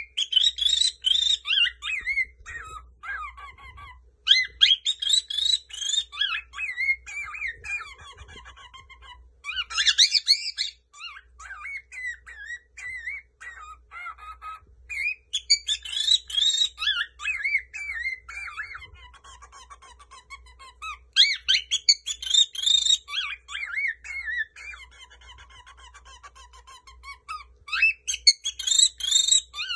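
Cockatiel whistling and warbling: loud, high, gliding whistled phrases about every five or six seconds, with softer chattering warble in between.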